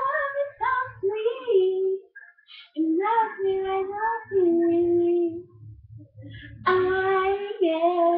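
A solo female voice singing unaccompanied in held notes and short runs, in three phrases with brief breaks between them.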